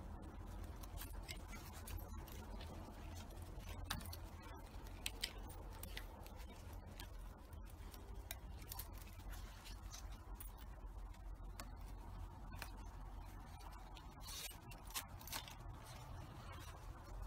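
Scattered small clicks, clinks and rustles of the Max Vest II harness's nylon webbing straps being tugged and adjusted through their metal buckles and clips, over a faint low rumble.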